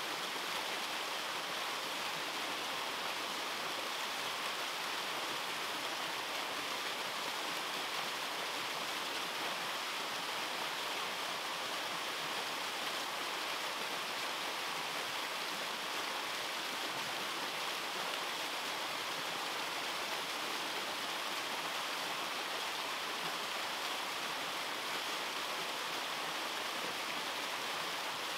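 Small waterfall, two cascades pouring down a rock face: a steady, even rush of falling and splashing water, mostly hiss with little low rumble.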